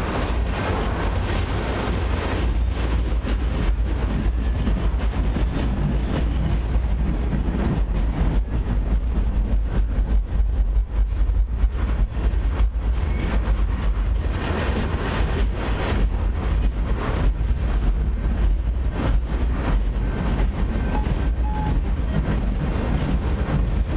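Freight train's TTX flatcars, loaded with wind turbine blades, rolling steadily past: a continuous rumble of steel wheels on rail with frequent short clicks.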